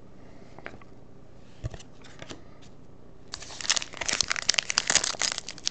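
A few light taps and a soft thump, then from about three seconds in, dense crinkling of a foil trading-card pack wrapper being handled and torn open.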